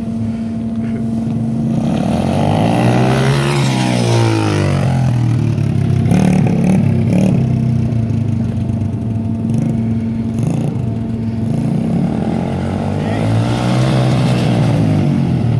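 Mini pit bike's small single-cylinder engine running as the bike is ridden around, its pitch rising and falling twice as it speeds up and passes by, about three seconds in and again near the end.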